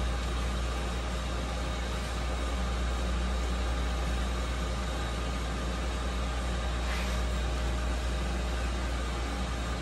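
Doosan Puma TT1800SY CNC turning center running: a steady machine hum, deep at the bottom with a few constant tones above it, and a faint tick about seven seconds in.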